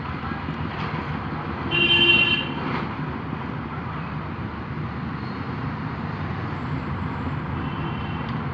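Steady road traffic noise, with a short vehicle horn toot about two seconds in.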